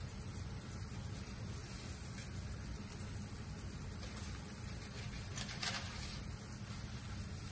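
Pot of pasta water boiling on an induction hob: a steady low hum under faint bubbling. One light tap about five and a half seconds in.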